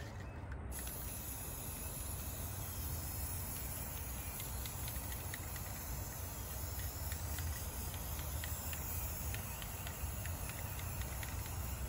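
Aerosol spray-paint can spraying a base coat onto a plastic kayak: a steady hiss that starts sharply under a second in and runs on unbroken.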